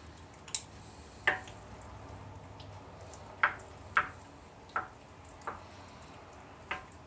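A wooden spoon stirring chunky soup ingredients in a Crock-Pot slow cooker, knocking against the crock about seven times at uneven intervals.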